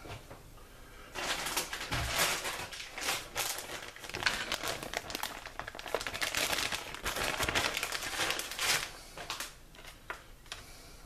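Plastic bag of shredded cheese crinkling as it is handled, with many small crackles. It starts about a second in and dies down near the end.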